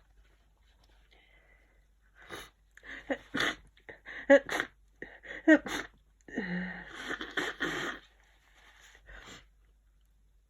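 A person with a head cold catching their breath and sneezing several times, the two loudest sneezes about a second apart near the middle. A couple of seconds of noisy breathing follows.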